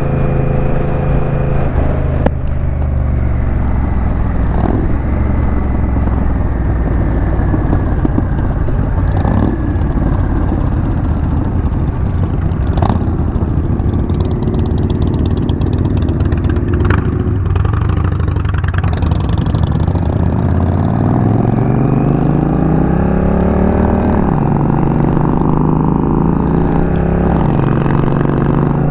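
Honda Rebel 1100 DCT's parallel-twin engine running at cruising speed under road and wind noise, with a few short clicks along the way. In the last third the engine revs up as the bike accelerates, its pitch climbing and then dropping back as the dual-clutch gearbox shifts up.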